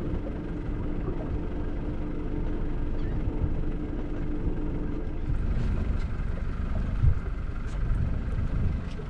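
Wind rumbling on the microphone aboard a small open skiff, with a steady low hum that stops about five seconds in. A few light clicks and one knock come after it.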